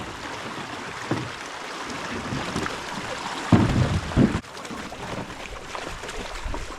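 Steady rushing of water and wind, with a few low thumps and two heavy low thumps close together about halfway through, typical of a canoe hull being knocked and handled.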